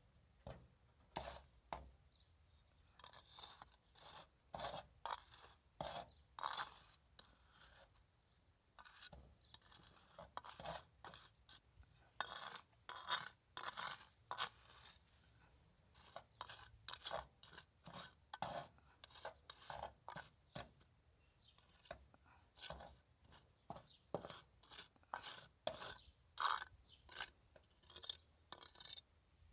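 Wet cement mortar being scraped and pressed into place: an irregular run of short gritty scrapes and crunches, a few each second. The mix is a little too wet and sags.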